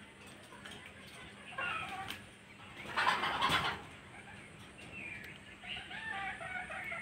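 Hens clucking in short calls, with a loud burst of wing flapping about three seconds in.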